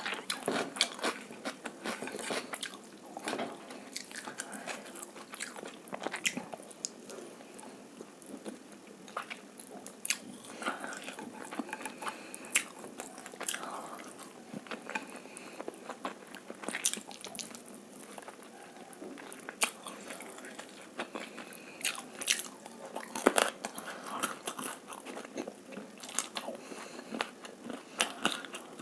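Close-miked mouth sounds of someone chewing and biting egg fried rice and chilli chicken: irregular wet smacks and crunchy clicks.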